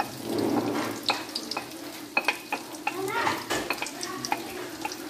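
Freshly added chopped onions sizzling and frying in hot oil in a metal kadai, with scattered sharp clicks and knocks of a utensil against the pan.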